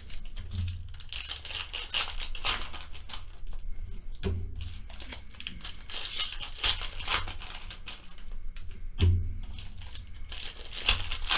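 Foil trading-card pack wrappers crinkling and tearing as packs are opened and handled, with a few dull low thumps.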